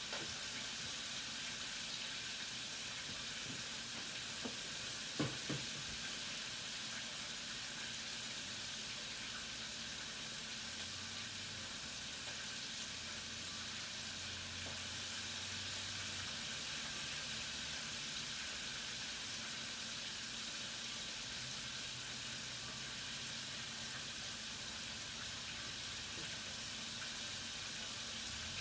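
Hot oil in a deep fryer sizzling steadily while chicken wings fry. A couple of brief knocks sound about five seconds in.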